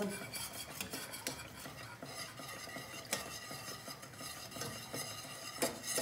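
A spoon or whisk stirring milk and packet chocolate sauce mix in a pot, a soft scraping with scattered light clinks against the pot.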